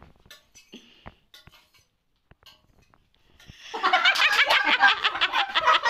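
A few faint clicks and taps, like a thin stick on a glass tabletop, then about three and a half seconds in several people start laughing loudly and keep laughing.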